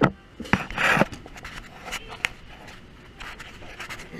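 A knock, then a click about half a second in and a short scrape just before the one-second mark, followed by scattered lighter clicks and rubbing.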